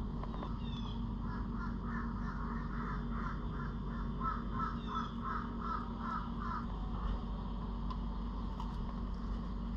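A bird calling in a quick, evenly spaced series, about a dozen calls over five seconds, over a steady low background hum, with a few fainter, higher chirps.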